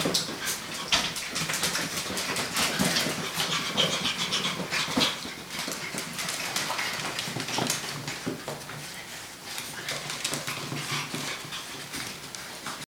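Six-week-old puppies' paws pattering and clicking on a hard hallway floor as they run, in quick irregular taps, with a short high whine about four seconds in.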